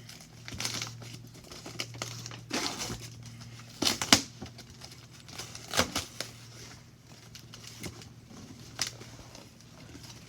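Speaker packaging being torn and crinkled open by hand: irregular rustles and rips of cardboard and plastic wrap, a few sharper tears standing out around the middle.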